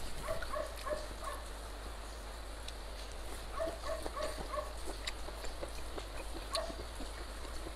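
A dog yapping: a run of four or five short yaps near the start, another run around the middle, and one more near the end.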